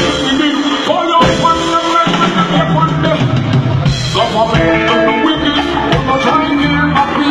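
Live band music with a drum kit and a bass line, loud and steady throughout.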